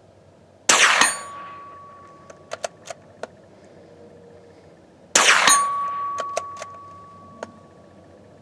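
Two rifle shots about four and a half seconds apart, each followed a split second later by a steel gong being hit and ringing with a clear tone that fades over a few seconds. A few light clicks come between the shots.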